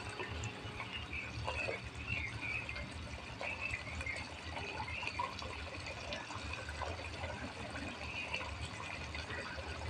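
Mutton pieces frying in oil in a clay handi while a wooden spoon stirs them: a quiet, steady sizzle with small crackles and soft scraping. This is the bhuna stage, once the cooking water has dried off.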